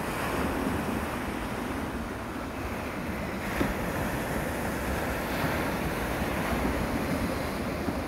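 Small waves breaking on a beach of round pebbles, the backwash washing over and rolling the stones, with a steady wash of surf and some wind on the microphone. A single sharp click about halfway through.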